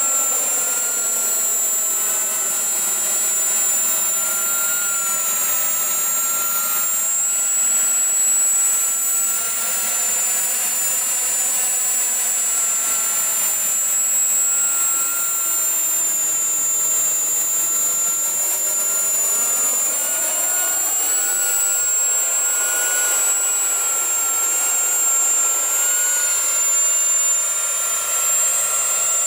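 RC F-35B model jet flying in transition with a steady high-pitched engine whine. The sound sweeps up and down as the aircraft passes and turns overhead.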